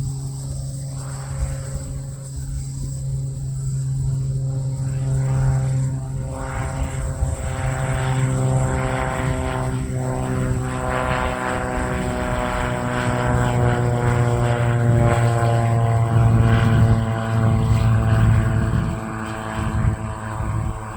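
Beechcraft A36 Bonanza's six-cylinder piston engine and propeller droning steadily. It grows louder to a peak about two-thirds of the way in, then eases off.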